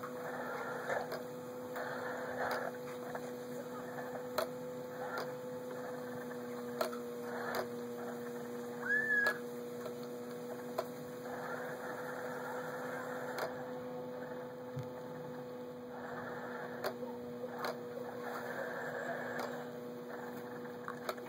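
A steady electrical hum, with scattered clicks and short stretches of rushing noise.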